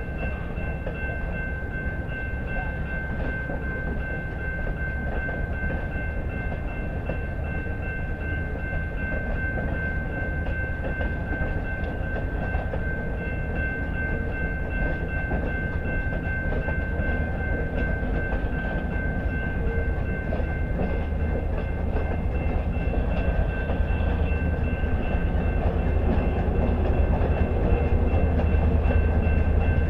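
Train running with a low rumble that slowly grows louder, under a steady high whine that holds throughout.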